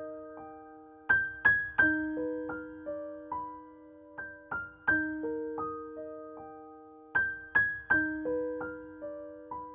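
Slow, gentle solo piano music: single notes and small groups of notes struck and left to ring out and fade.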